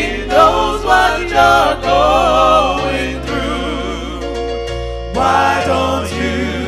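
Gospel song: sung vocals holding long, wavering notes over sustained bass notes that change every second or so.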